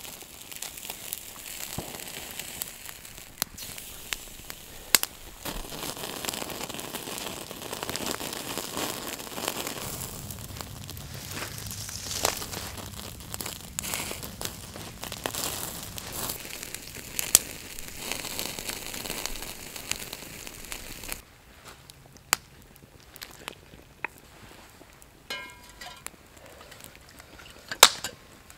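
Steak sizzling on a wire grill over a campfire, with the wood crackling and sharp pops. About 21 seconds in, the sizzle cuts off and only quieter fire crackling with scattered pops remains.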